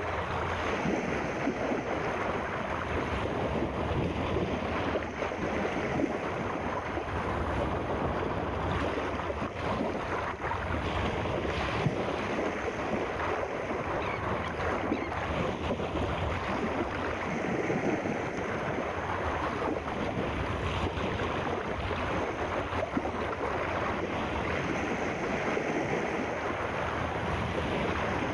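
Sea ambience: a steady rush of surf and wind, even throughout, with no separate wave breaks standing out.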